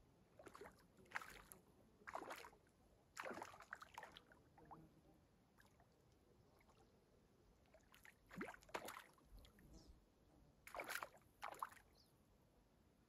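Faint, short splashes and sloshes of water, about eight of them, some in pairs less than a second apart, with quiet gaps between.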